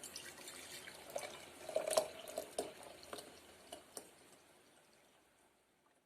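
Water trickling and dripping, with small irregular splashes and clicks, fading away near the end.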